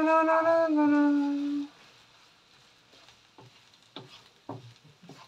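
A voice humming a few long held notes of a tune, for about the first second and a half. Then a wooden spoon stirring tagliatelle in a frying pan, with scraping and several light knocks against the pan.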